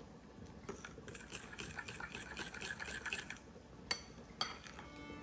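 A metal utensil stirring instant mashed-potato powder into hot water and milk in a glass bowl: quick light clinks and scrapes against the glass, with two sharper clicks about four seconds in.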